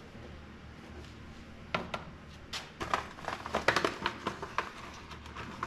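Small parts and the packaging of a carburetor rebuild kit being handled: a run of crinkles, rustles and small clicks starting a little under two seconds in.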